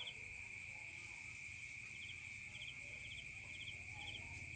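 Faint insect chorus: a steady high-pitched drone with short chirps in quick threes, repeating irregularly.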